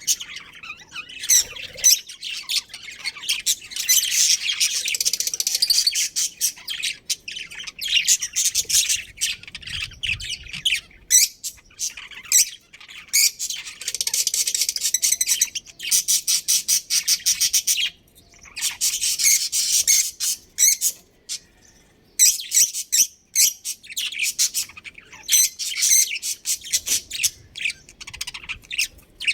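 Budgerigars chirping and chattering in a rapid, continuous stream of high chirps and squawks, with a couple of brief lulls.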